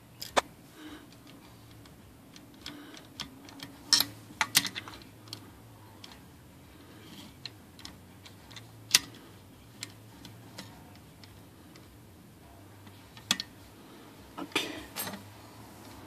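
Irregular metallic clicks and taps of a small screwdriver and fingers working at the screws and parts of a typewriter's carriage rack, with a few sharper clicks around four seconds in, about nine seconds in and near the end.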